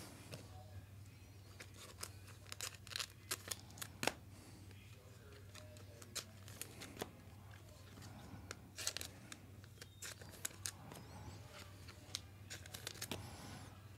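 Faint handling of a basketball trading-card pack: the foil wrapper crinkling and tearing and the cards being shuffled, heard as scattered soft clicks and rustles over a faint low hum.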